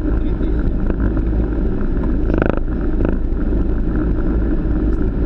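Steady, loud rushing of airflow and engine noise heard on a Boeing 737 flight deck in flight. A short louder swish comes about halfway through.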